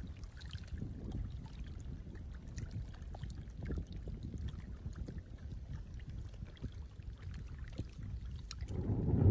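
Many fish wriggling and splashing in shallow muddy water, with small wet slaps and trickles over a low steady rumble. A louder rushing noise swells up near the end.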